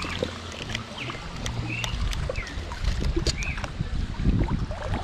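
Water splashing and sloshing as a hand net is swept through a shallow creek, with scattered knocks of handling, and a few short high chirps.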